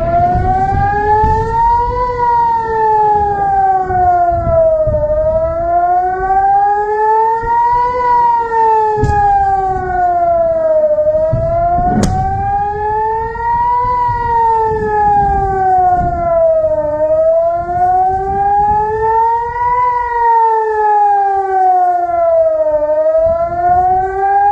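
Civil defense air-raid siren sounding a rocket alert: a two-tone wail that rises and falls slowly and evenly, about six seconds to each cycle, over a low rumble. Two sharp cracks come near the middle.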